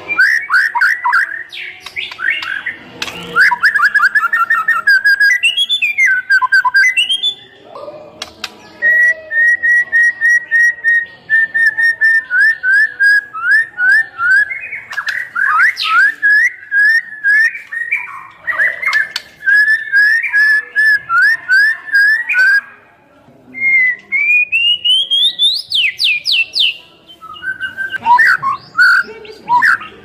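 White-rumped shama (murai batu) in full song: loud, fast series of short, falling whistled notes held at much the same pitch, broken by a few brief pauses, with a rising run of notes a few seconds before the end.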